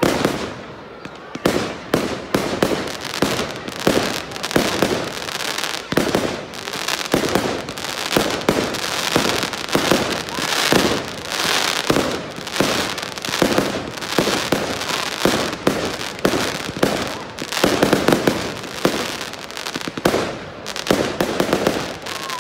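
Fireworks display: a fast, unbroken barrage of bangs with dense crackling between them, busiest around the middle.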